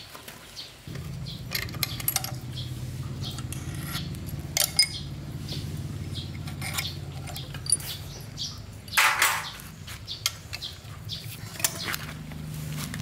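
Metal parts and tools clinking and knocking in a scattered series of sharp clicks, with a louder scrape about nine seconds in. A low steady hum starts about a second in and runs under them.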